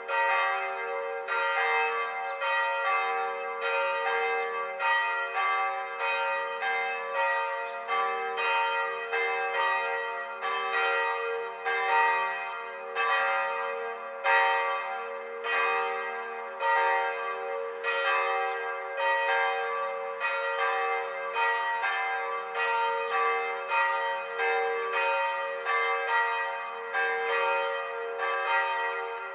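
Several church bells ringing a swinging peal: a steady run of overlapping strikes at different pitches, their ringing tones sustained between strokes.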